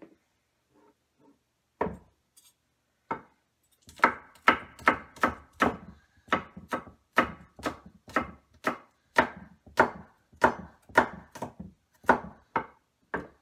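Chef's knife finely chopping a jalapeño pepper on a thick wooden butcher-block board. Two single knocks, then from about four seconds in a steady run of sharp chops, about three a second.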